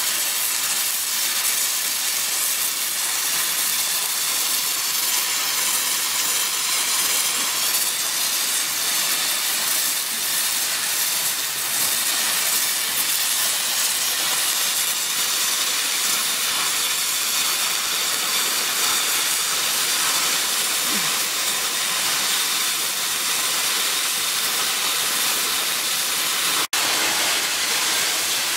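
Stick welding arcs on a steel pipe joint: cellulosic electrodes burning with a steady hiss, two welders working the joint at once. A momentary break in the sound comes near the end.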